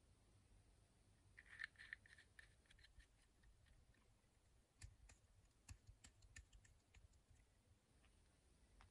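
Faint scratchy scraping about a second and a half in, then scattered small clicks, from fingers handling a vintage fountain pen's cap and its metal clip.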